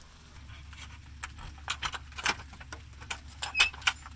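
Keys jangling and clicking against a brass deadbolt lock as a key is put into it: a run of sharp metallic clicks and clinks from about a second in, loudest near the end, over a low steady hum.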